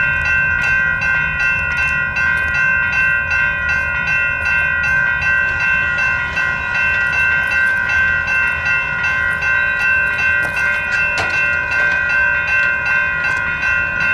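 Railroad crossing bells, a mix of General Signals Type 3, NEG and Western Cullen Hayes bells, ringing steadily in rapid strokes over a low rumble. The crossing signal is clearing: the bells keep ringing while the gates rise.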